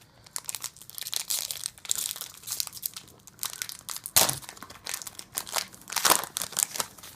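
Foil wrapper of a Pokémon booster pack crinkling and tearing as it is torn open by hand, in irregular crackles, with two sharper, louder crackles about four and six seconds in.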